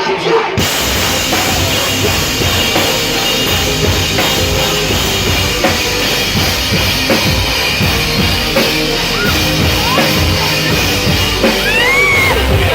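Live rock band playing loud, with the drum kit's kick and snare to the fore in a passage without vocals.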